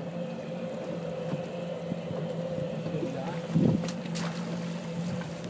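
Boat engine running with a steady drone, and one brief, louder low sound a little past halfway.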